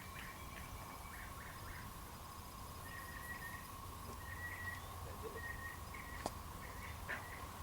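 Faint outdoor ambience: a constant low rumble with a thin steady tone above it, taken by the listener for an unexplained constant sound in the sky rather than a tractor. Short bird chirps come now and then, with one click about six seconds in.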